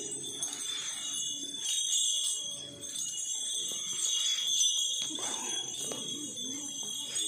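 Bells on a walking temple elephant jingling in a steady, continuous ring.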